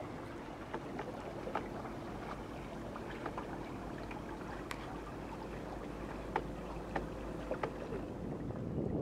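Water lapping and splashing against the hull of a wooden sailing boat under way, with irregular small clicks and ticks over a steady wash of wind and water.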